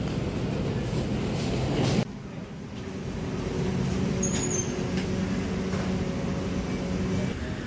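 Suitcase wheels rumbling over paving stones for about two seconds, then cut off abruptly. The quieter stretch after it holds a steady low hum.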